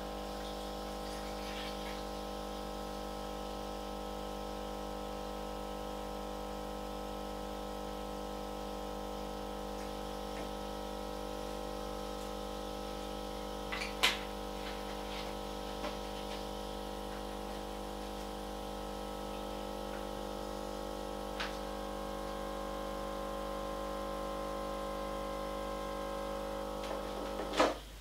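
Krups XP 3440 espresso machine's vibration pump humming steadily as it pulls a shot into a steel cup. A sharp clack about halfway through, then a loud click near the end as the machine is switched off and the hum cuts out.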